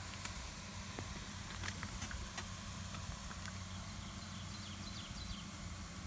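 Hot stones clicking lightly against one another and against wooden sticks as they are lifted from the coals, several times in the first few seconds, over a steady low rumble and an even hiss. A few faint chirps near the end.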